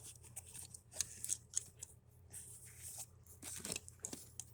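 Hand tools being handled and pulled from a canvas tool bag: scattered faint clicks of metal tools and rustling.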